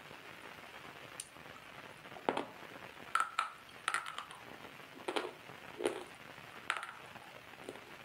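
Water drops falling: about ten sharp, irregularly spaced drips, some with a short ringing plink, over a faint steady hiss.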